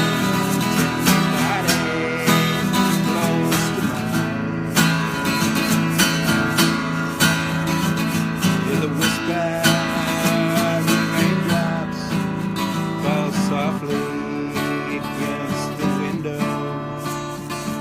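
Acoustic guitar strummed steadily, accompanying a slow country ballad.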